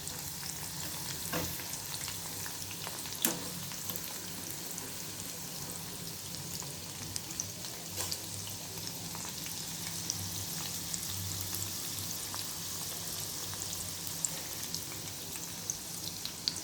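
Ivy gourd pakodi in gram-flour batter deep-frying in hot oil over a medium flame, sizzling steadily. A few sharp clicks come through, about a second in, near three seconds and near eight seconds, as the fritters are turned.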